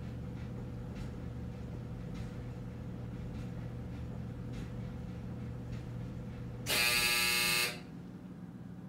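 Clothes dryer buzzer sounding once, loud and about a second long, roughly seven seconds in: the signal that the drying cycle has ended. Before it, a steady low hum that stops as the buzzer starts.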